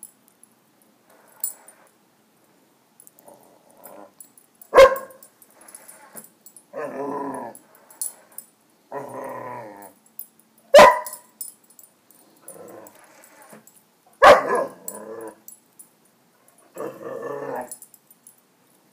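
Young German Shepherd barking three times, each bark sudden and loud, with about second-long growls and whines in between.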